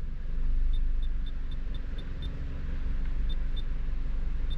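A Honda car idling, heard from inside the cabin as a steady low rumble with a faint hum, and a run of short faint high ticks.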